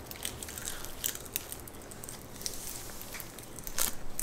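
Crisp roasted seaweed snack sheets crackling and crunching as they are handled and eaten: a run of small irregular crackles, with a louder cluster near the end.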